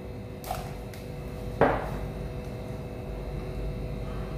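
Kitchen utensils and containers being handled on the table: a faint click, then a sharp knock with a short ring about a second and a half in, and a louder knock near the end, over a low steady hum.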